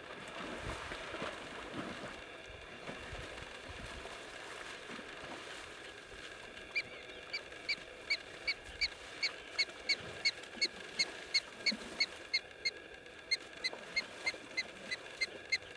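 An animal's short, high chirping call, repeated evenly about three times a second, starts about seven seconds in over a steady outdoor background.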